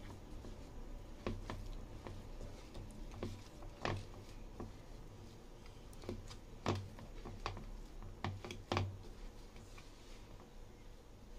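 Hands kneading pumpkin dough in a bowl: irregular soft taps and knocks of fingers and dough against the bowl, a few of them sharper.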